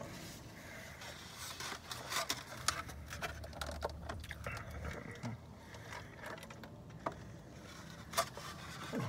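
Quiet eating sounds: taco chewing with rustling and scattered small clicks and smacks.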